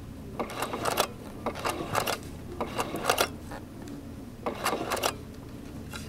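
Sewing machine stitching free-motion in four short bursts of rapid needle strokes, tacking silk ribbon down with a stitch or two at a time.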